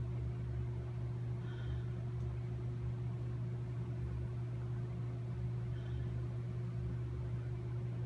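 Steady low mechanical hum, like an office air-conditioning or appliance hum, with two faint short high chirps about a second and a half in and near six seconds.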